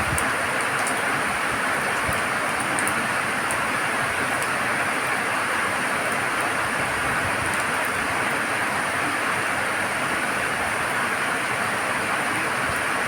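Steady rain, an even hiss with scattered sharp ticks of individual drops.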